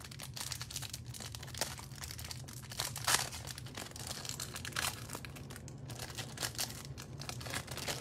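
Clear plastic wrapper on a stack of trading cards being torn and crinkled off by hand: a stream of sharp crackles, with one louder crack about three seconds in, over a steady low hum.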